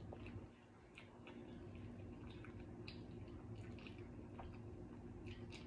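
Faint wet chewing and mouth clicks from a person eating, scattered short smacks over a steady low hum.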